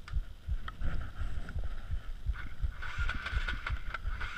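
Wind buffeting the microphone in uneven low gusts, over the steady noise of an enduro motorcycle engine running, which gets louder about three seconds in.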